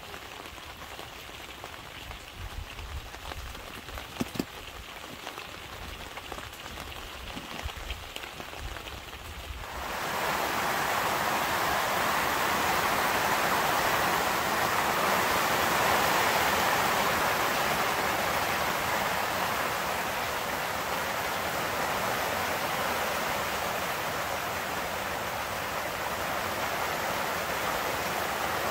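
Rain falling on a wet tent, at first fairly quiet with a few sharp knocks. About ten seconds in it jumps to a loud, steady hiss of rain on the Gazelle T4 hub tent's fabric, heard from inside the tent.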